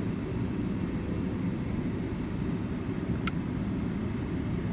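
2005 Ford Taurus engine running steadily, a low rumble, with one sharp click about three seconds in.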